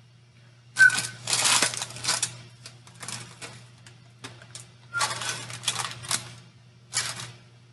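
Rattling and rustling of a baked cake being lifted out of its parchment-lined baking pan, in three spells: about a second in, around five seconds in, and a short one near the end.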